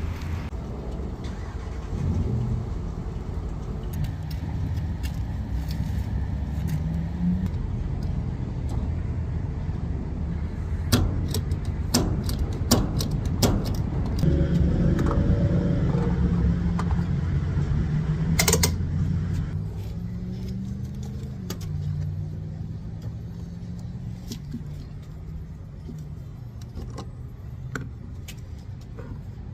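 Motor vehicle engine running with a low, steady hum whose pitch shifts up and down now and then, with scattered clicks and knocks in the middle.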